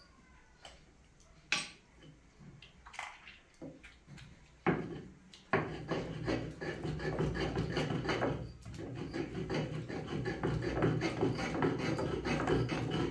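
Tomatoes and dried chiles being ground into salsa: a few scattered knocks, then about five seconds in a steady rasping grind starts, which stops abruptly near the end.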